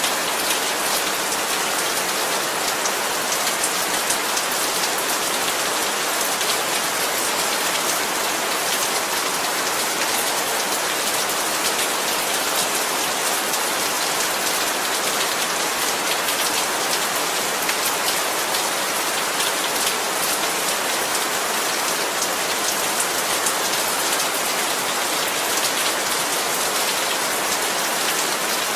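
Heavy rain falling steadily, a dense even hiss with fine pattering of drops on surfaces.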